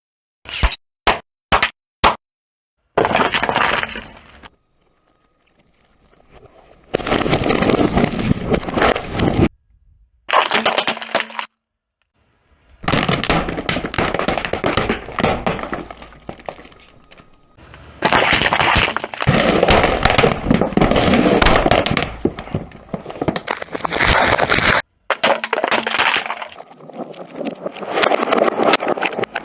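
A car tyre rolling over and crushing crunchy and squishy objects: loud cracking and breaking crunches in a series of separate passages, each a few seconds long and cut off abruptly. It opens with four sharp snaps.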